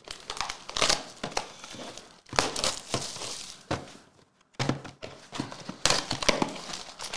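Trading card packs and boxes handled on a table: plastic wrappers crinkling, with clicks and light knocks in irregular bursts.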